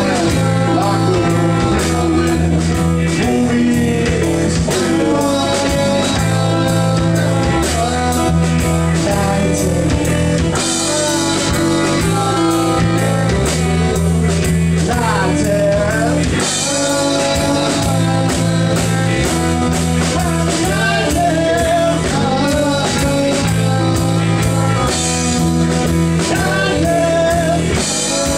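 Live rock band playing a song, with electric and acoustic guitars, bass guitar and a drum kit keeping a steady beat, and a sung vocal over it.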